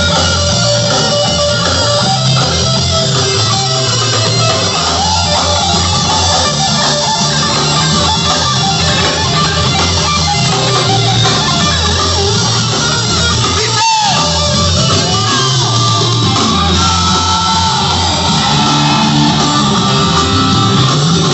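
Live rock band playing loud, a guitar-led instrumental passage with bass and drums, heard from inside the crowd. The sound cuts out for an instant about two-thirds of the way through.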